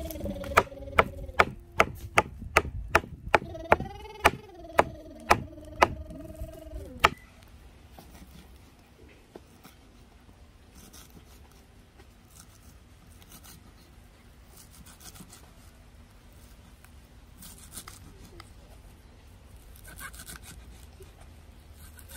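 Knife chopping on a cutting board in a steady rhythm, about two to three strokes a second. It stops about seven seconds in, and only faint light clatter follows.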